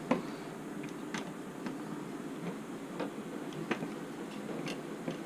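Light, irregular clicks and taps of small parts being handled while working a stuck torque tube out of an RC helicopter's tail boom.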